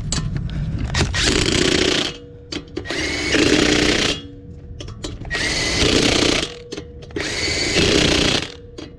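Handheld power tool run in four bursts of about a second each, roughly every two seconds, with a whine in each burst.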